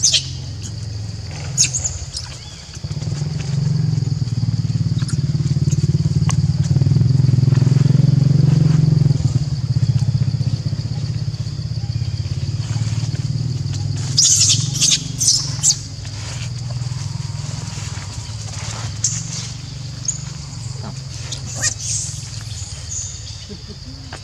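A motorbike engine running nearby, louder from about three seconds in until about nine, over a steady high drone. A few short, high squeaks from young macaques come about two-thirds of the way in.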